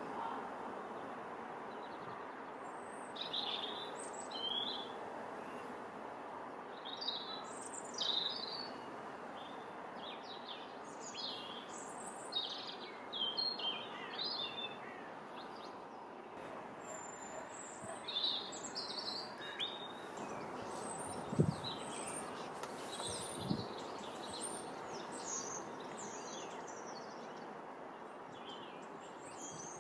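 Small songbirds chirping and calling in short, high-pitched phrases scattered throughout, over a steady background of outdoor noise. Two short, dull thumps come about two-thirds of the way through; the first is the loudest sound.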